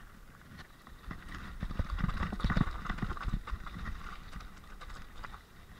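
Mountain bike descending a rough, rocky forest trail, its tyres crunching over dirt and stones while the bike rattles and clatters with many small knocks. It grows louder about a second in as the bike reaches the rough ground.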